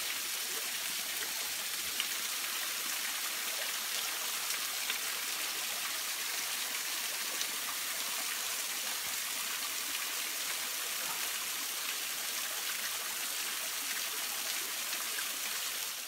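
Small low-flow waterfall: thin streams of water falling down a mossy rock face and splashing on the rock below, a steady hiss with small scattered splashes. It fades out at the very end.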